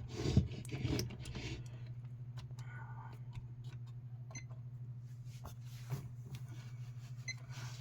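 Scattered small clicks and brief rustling handling noises over a steady low hum.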